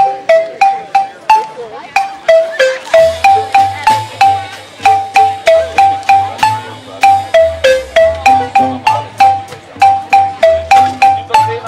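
Zimbabwean-style marimbas played with mallets by a children's band: a repeating melody of quick, evenly spaced notes, about three a second. A low bass line joins about three seconds in.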